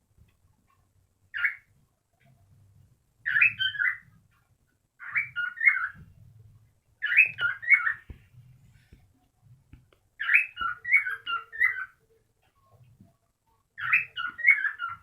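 Cockatiel calling: one short call, then five chirping, warbling phrases of about a second each, with pauses of a second or two between.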